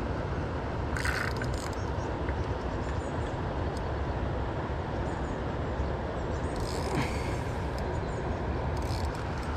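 Steady rush of fast-flowing river water, with a few brief rustles at about one second, near the middle and near the end.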